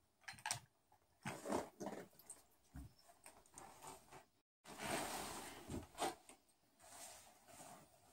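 Faint, scattered rustles and light knocks from someone handling things close by, with the sound cutting out completely for a moment near the middle.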